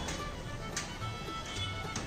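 Background music with a low pulsing beat and sharp ticks about once a second.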